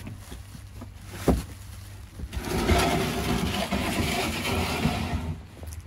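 A knock, then about three seconds of loud, even scraping as a large cardboard carton is dragged across brick block paving.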